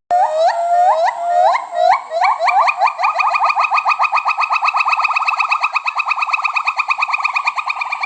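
A primate calling: a string of short, rising whooping notes that start slowly and speed up into a rapid, even run of several notes a second, held for several seconds before fading.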